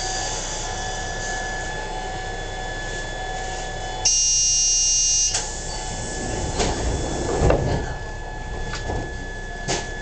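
Electric train standing at a platform sounds its door buzzer once, a steady electronic buzz lasting just over a second. A few knocks and thuds follow as the sliding doors close, over the steady hum of the stationary train.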